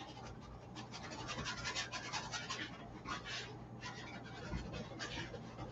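Oil paintbrush bristles scraping across a stretched canvas in a run of short, uneven strokes, over a low steady hum.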